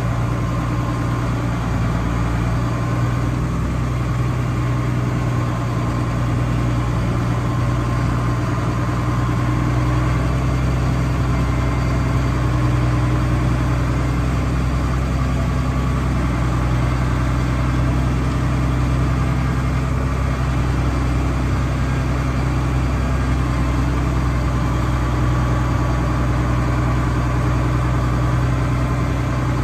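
Ford TW-5 tractor's six-cylinder turbo diesel engine running at a steady speed as the tractor drives, heard from inside the closed cab, with a constant low hum.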